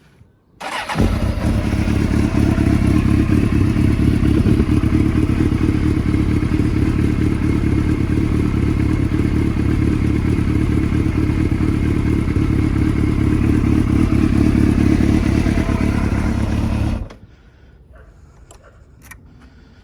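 The inline-four engine of a 2001 Suzuki GSX-R750 K1 motorcycle starts up first time and runs at a steady, even level. It cuts off abruptly near the end.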